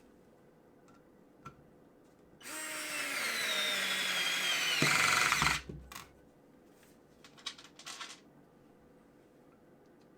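Parkside PASS 4 A1 cordless electric screwdriver driving a screw into wood, its small motor whining for about three seconds. The pitch falls steadily as the screw goes in and the load grows. It stops abruptly, and a few light clicks and knocks follow as the next screw is set.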